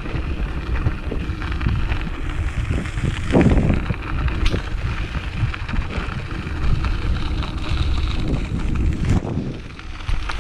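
Steady wind noise on the microphone over tyre noise from a bicycle ridden along a gravel trail.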